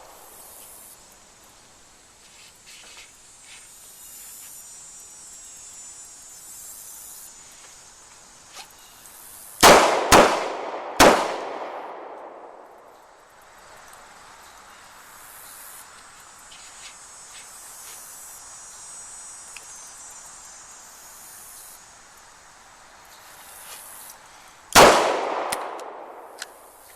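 Smith & Wesson M&P 360 revolver firing: three shots in quick succession, two close together and a third about a second later, in the failure drill's two-to-the-body, one-to-the-head pattern. One more shot comes near the end. Each shot rings out briefly.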